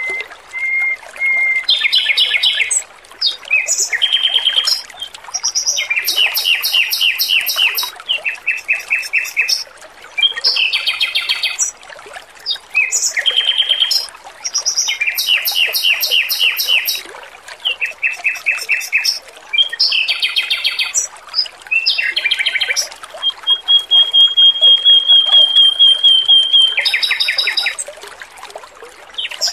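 Male red-billed leiothrix (Pekin robin) singing a string of fast, high trilled phrases with short pauses between them, including one long steady trill about three quarters of the way through, over steady trickling water.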